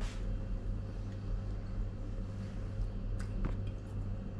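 A steady low hum, with a few faint clicks of a metal spoon against a small cup about three seconds in.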